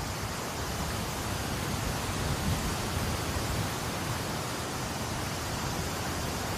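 Steady rushing hiss of moving air with an uneven low rumble underneath; no distinct motor whine or pitched tone stands out.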